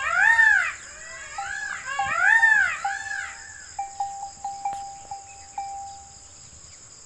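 Indian peafowl calling: a series of loud, rising-and-falling wailing calls in the first three seconds, then fainter short notes. A steady high insect hiss runs underneath.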